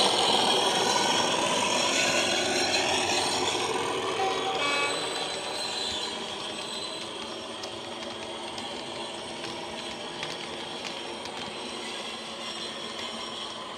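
Factory-fitted DCC sound of a model Class 37 diesel locomotive, its English Electric engine sound playing through the onboard speaker as it passes and fading away over the first six seconds. Then the model freight wagons running past, a steady rumble with many small clicks from the wheels on the track.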